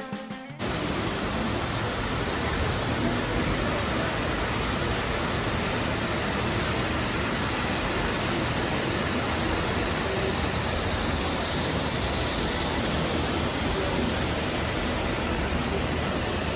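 Steady rushing of water from the artificial waterfalls outside the Mirage hotel, an even, unbroken roar.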